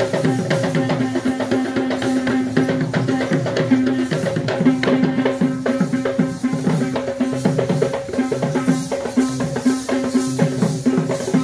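Dance music of fast, rhythmic drumming, with a steady held note sounding continuously through it.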